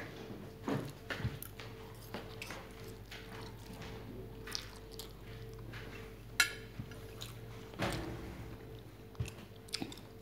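Close-up eating sounds: chewing mouthfuls of Samyang instant noodles and fried chicken, with scattered sharp clicks, the loudest about six seconds in, as a metal fork knocks against the plate, over a faint steady hum.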